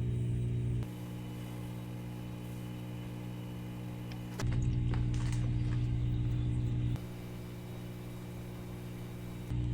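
Machine tool's electric motor running with a steady hum. The level steps abruptly quieter about a second in, louder a little before halfway, quieter again about three-quarters through and louder near the end, with a few light clicks just after the middle.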